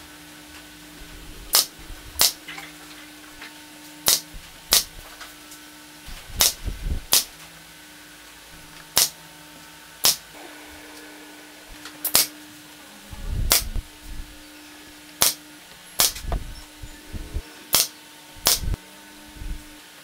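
Pneumatic nail gun firing nails into thin wooden roof slats: a dozen or more sharp shots, irregularly spaced and often in quick pairs.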